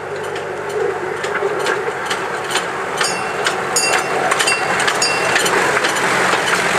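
Miniature railway train with its carriages approaching and running past, growing louder. It makes a steady running noise with repeated sharp clicks from the wheels and a few short high squeaks in the middle.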